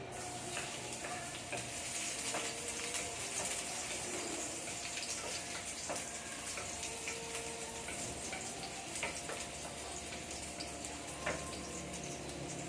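Garlic sizzling and crackling in hot oil as it is sautéed. The sizzle starts suddenly as the garlic goes into the pan, with scattered sharp clicks of stirring.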